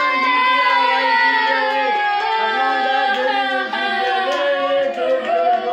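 Music with singing: a voice holding long notes that slowly fall in pitch.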